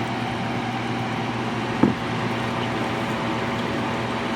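Vintage Philco Noiseless 6800 BTU window air conditioner running with a steady electric hum, with one short knock about two seconds in.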